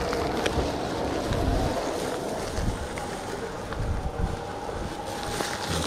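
Wind buffeting the microphone: an uneven low rumble in gusts, with a few light clicks and a faint steady tone in the second half.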